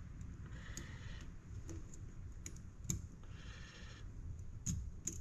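Small metal parts of a Halo differential locker being worked into place by hand: scattered light clicks, one sharper click about three seconds in, and two short spells of metal scraping as the lock tabs are fitted.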